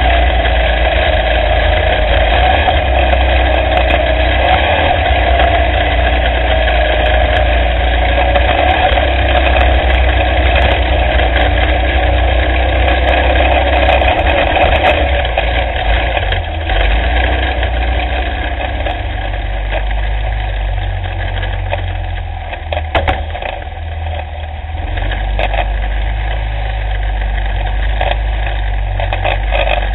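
Onboard sound of an off-road race kart's engine running under way, with a heavy low rumble of wind and vibration on the mounted camera. The engine note drops back about halfway through, and sharp knocks and rattles come through near the end.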